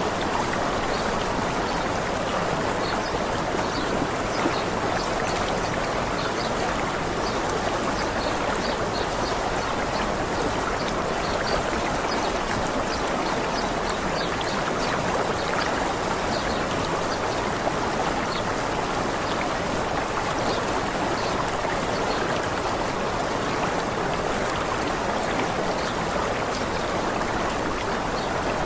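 Waterfall water rushing steadily and evenly, with faint high bird chirps now and then in the first half.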